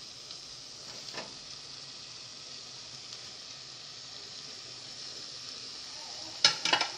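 Onion and spice masala sizzling steadily in hot oil in a pan. Near the end come a few sharp knocks of a utensil against the pan.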